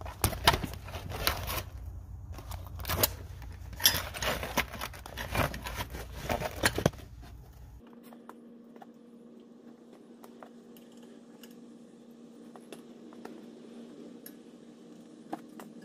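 Irregular metallic clinks and knocks of tools and brake parts being handled, mixed with rubbing noise from the camera being moved, for about eight seconds. The sound then cuts to a faint steady hum with a few light ticks.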